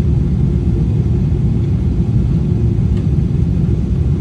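Steady low rumble inside an airliner cabin during the descent to land: jet engines and airflow over the fuselage, with a faint steady hum above it.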